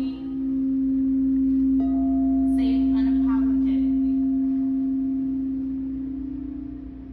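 Frosted quartz crystal singing bowls ringing: a mallet circling one bowl's rim holds a strong, steady low tone. About two seconds in a second, higher bowl is struck and rings over it. Near the end the low tone wavers.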